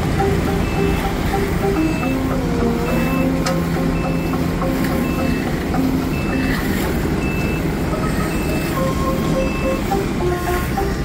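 Reversing alarm on a heavy road-works vehicle, beeping evenly about once every three-quarters of a second over a running diesel engine. The beeps stop about nine and a half seconds in.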